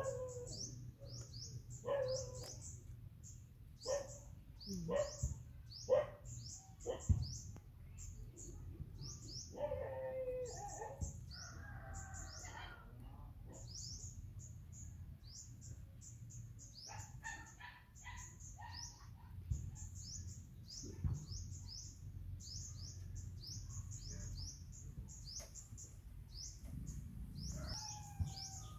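Small birds chirping over and over in short, high, downward-sliding notes, several a second. A few sharp clicks and knocks stand out in the first several seconds.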